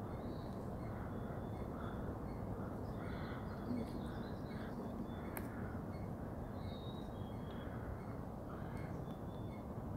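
Steady outdoor background hiss with faint, scattered bird calls, and a single sharp click about five seconds in.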